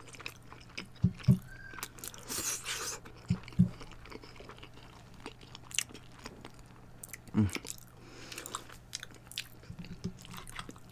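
Close-miked chewing and crunching of baked macaroni and cheese with a crisp browned cheese crust: wet mouth sounds, soft crackles and bites, and light clicks of a metal fork in the glass dish.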